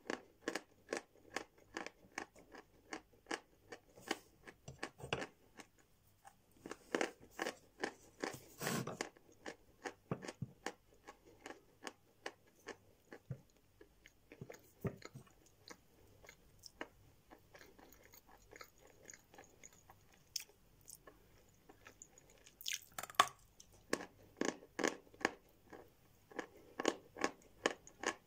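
Mouthfuls of edible 'Barkhat' (velvet) chalk being chewed: a steady run of crunching chews, about three a second, thinning out for a while in the middle.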